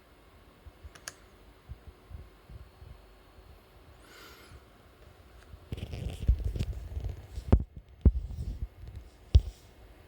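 Neighbour noise heard through the building: low, muffled rumbling and banging. Faint scattered thumps at first, then from about six seconds in a louder rumble with several heavy thuds.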